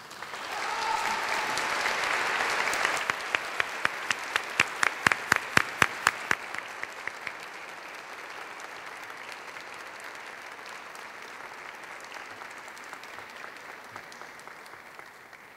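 Audience applauding. The applause is loudest for the first few seconds. A run of sharp, close claps at about three a second stands out for a few seconds after that, and then the applause settles lower and fades toward the end.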